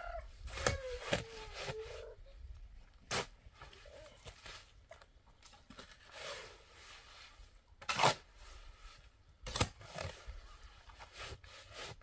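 A young child's whimper trailing off in the first couple of seconds, then scattered sharp knocks and rustling.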